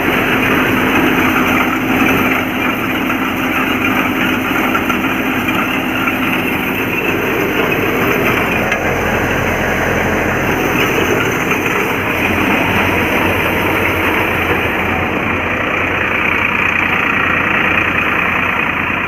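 Harnam Singh tractor-driven wheat thresher running steadily while threshing wheat, a loud, even mechanical noise with the tractor's engine running underneath.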